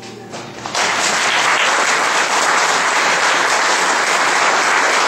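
Congregation applauding after a choir has sung: the last sung chord fades, the clapping comes in within the first second and then holds steady and full.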